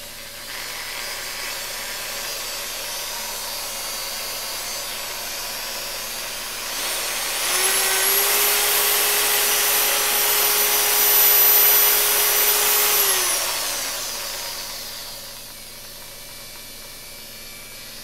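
Makita 9227C rotary polisher motor and bevel gears running with a steady whine and no grinding, freshly packed with grease and thinned gear lube. About seven seconds in it speeds up with a rising whine, holds at the higher speed, then winds back down about six seconds later. The owner calls it nice and quiet.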